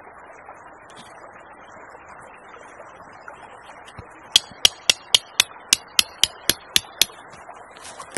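A quick run of about eleven sharp knocks, about four a second, each with a short ringing ring, starting about four seconds in, over a steady rushing background.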